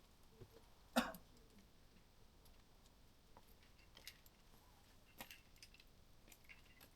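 A few sharp metallic clicks and clinks over near silence, the loudest about a second in, as climbing gear is handled.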